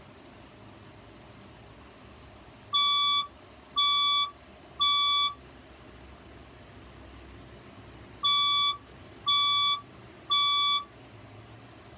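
Fire alarm voice-evacuation speaker sounding the temporal-three evacuation tone: three short beeps, a pause, then three more. This pattern is the standard signal for a fire evacuation.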